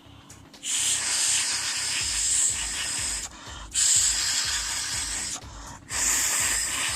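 Air blower blasting dust out of a laptop's cooling fan in three long hissing bursts, with short pauses between them.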